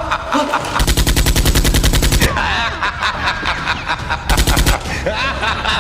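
Rapid-fire machine-gun sound effect in two bursts: one lasting about a second and a half starting near the first second, and a short one about four seconds in.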